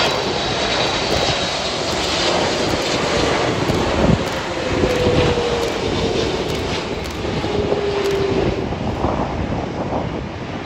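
Jet engines of a wide-body twin-jet airliner landing, giving a steady rushing noise. A whine in it falls slowly in pitch from about four to eight seconds in, as the aircraft touches down.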